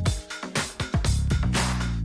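Background music with a steady electronic dance beat and a bass line.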